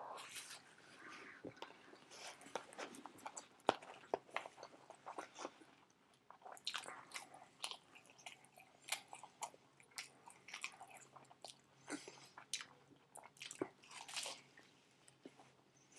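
Close-up biting and chewing of a bacon-and-lettuce sandwich on white bread: an irregular run of wet smacks and crunches.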